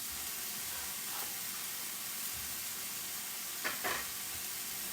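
Ahi tuna frying in a pan with a steady sizzle.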